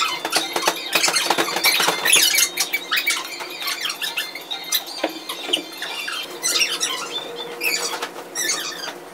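Aerial yoga hammocks squeaking as several people shift their weight in them, many short, irregular high squeaks.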